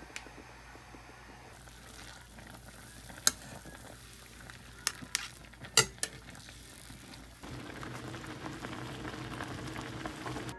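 Food sizzling as it fries in a pan, with a few sharp clinks of utensils in the middle. The sizzling gets louder about seven seconds in.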